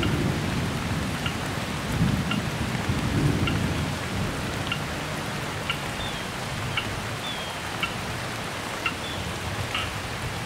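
Tropical downpour with rolling thunder: rain hissing steadily, a deep thunder rumble that is loudest in the first few seconds and then dies away. A faint high clicking recurs about once a second over the rain.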